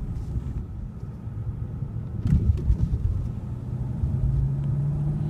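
2015 Hyundai Equus's 5.0-litre V8 pulling the car along with a low road rumble, a few short knocks a little over two seconds in; over the last couple of seconds the engine note rises steadily as the car accelerates.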